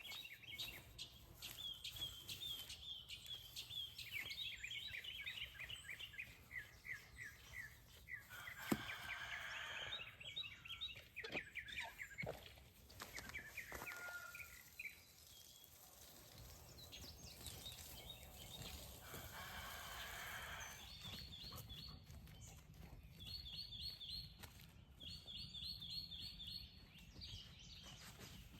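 Birds calling: repeated runs of short, high chirps, some falling in pitch, come and go throughout. A single sharp knock is heard a little under nine seconds in.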